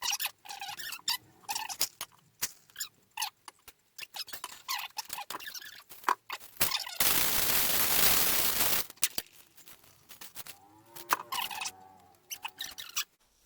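Cocktail-making sounds while Manhattans are mixed: a run of clinks and knocks of glassware, bottles and ice, with about two seconds of steady rushing noise in the middle, and a few short ringing clinks near the end.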